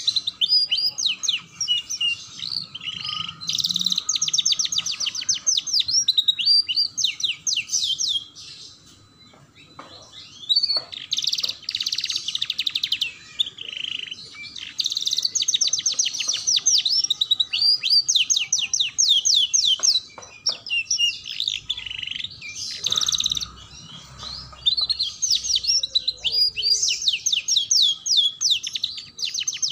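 Domestic canary singing long phrases of rapid trills and chirps. The song breaks off briefly about eight seconds in and resumes.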